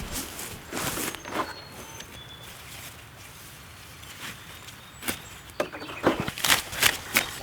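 Irregular swishing and rustling of leafy plants, coming in a cluster of quick swishes near the end, with faint bird chirps in the background.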